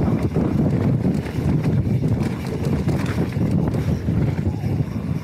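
Mountain bike rolling fast down a rough dirt trail: the tyres rumble over the ground and the bike rattles with rapid, irregular knocks as it jolts over bumps.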